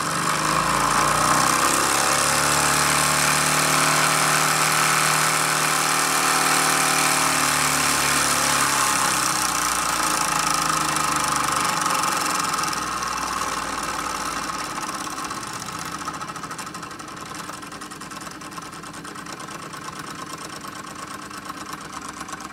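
Wilesco D14 model steam engine running under its in-line steam regulator valve: it picks up speed as the valve is opened and runs fast with a loud hiss. About ten seconds in it slows down as the valve is closed back, and it runs slower and quieter for the rest.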